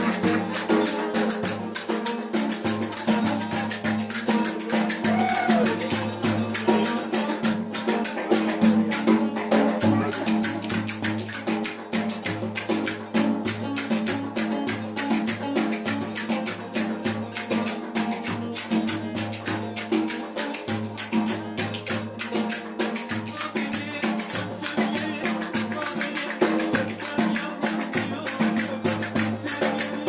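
Lively folk dance music: a cümbüş, a metal-bowled Turkish banjo-like lute, played continuously over a fast, steady clatter of hand percussion.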